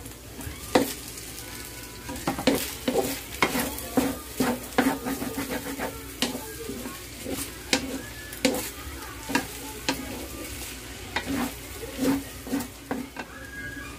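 Wooden spatula scraping and knocking against a large aluminium wok in irregular strokes, stirring meat as it sautés with a faint sizzle underneath.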